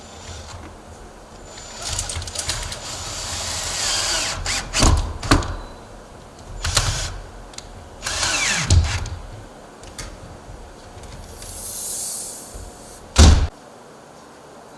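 Power drill running in several short bursts, with clunks, during storm door hardware installation, ending in one loud knock about a second before the end.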